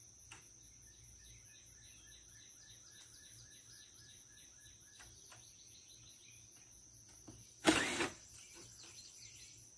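Outdoor summer ambience: a steady high drone of insects with scattered small bird chirps. About eight seconds in comes one short, loud burst of work noise from the metal roof, where screws are being taken out of the old trim.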